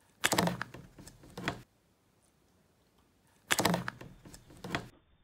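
Clear plastic deli cup being handled: two bursts of clattering plastic knocks and scrapes, each lasting over a second, about three seconds apart.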